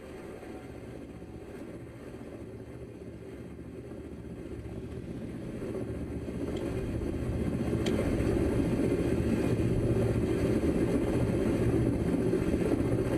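A low rumbling drone that swells over several seconds and then holds steady, with a couple of faint ticks as it builds.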